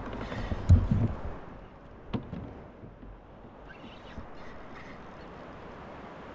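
Handling noise on a plastic fishing kayak: a few dull thumps about a second in and one sharp knock about two seconds in, over a steady hiss of wind and water.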